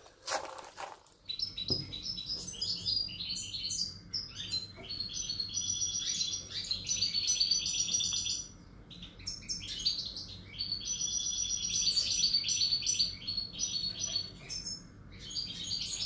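European goldfinch singing: long runs of fast, tinkling twittering, broken by a short pause about halfway and another near the end. A few short knocks come in the first second, before the song starts.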